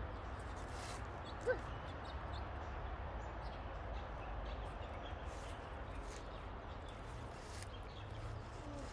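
Outdoor background noise: a steady hiss with a low rumble underneath, and one short, rising squeak about a second and a half in.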